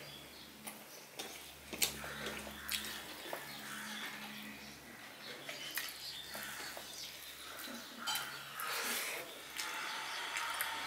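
Close-miked eating sounds: fingers mixing rice and fish curry on a steel plate, with small scattered clicks against the plate, and chewing.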